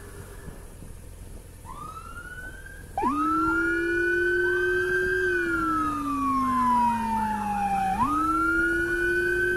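Electronic sirens of a police escort convoy wailing. Fainter sirens come first; about three seconds in, a loud siren starts, sweeping up quickly, holding high, falling slowly, then sweeping up again, while other sirens keep rising and falling faintly behind it.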